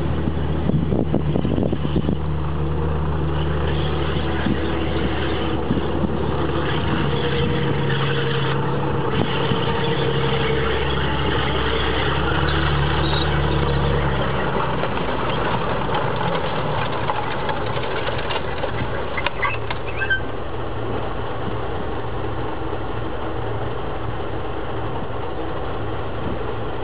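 Centurion tank's Rolls-Royce Meteor V12 engine running as the tank drives on its steel tracks, with a deep steady drone whose note changes about halfway through and scattered clanks from the tracks near the two-thirds point.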